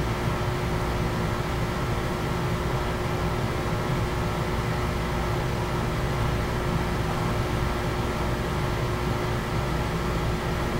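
A steady machine hum with an even airy noise, like a fan or blower running, holding level with no change.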